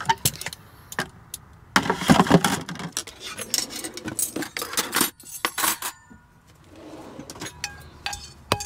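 Kitchen utensils and cookware clinking and rattling as they are put away into a drawer, with scattered knocks and clatters throughout.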